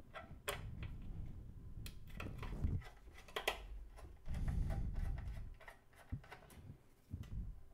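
Faint clicks and scrapes of a small screwdriver turning screws out of a metal firewall case, with low rumbling as the case is handled.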